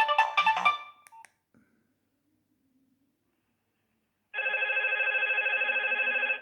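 Nokia 2610 ringtones from the phone's speaker: a polyphonic melody ends within the first second. After a pause, about four seconds in, a loud sustained chord of several steady tones with a slight warble begins.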